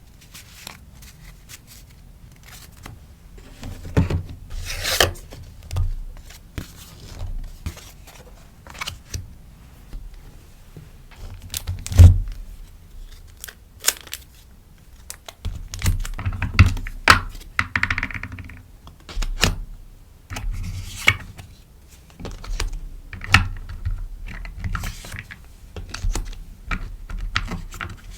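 Rustling and crinkling of sticker packaging being handled, with irregular taps and soft knocks on a desk and one louder thunk about twelve seconds in.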